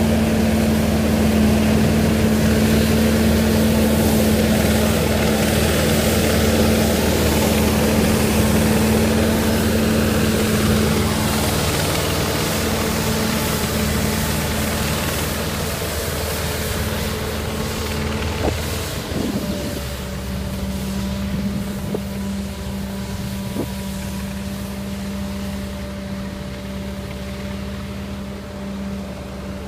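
Tymco 600 regenerative-air street sweeper running, its engine and blower making a steady hum. The pitch shifts about 19 seconds in, and the hum grows fainter as the truck moves away.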